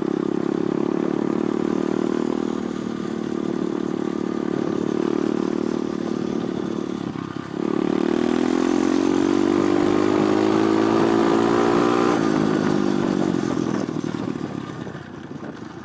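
Pit bike engine running under way: steady at first, a sudden brief drop about seven and a half seconds in, then rising in pitch as it accelerates, and falling away after about twelve seconds as it slows and quietens.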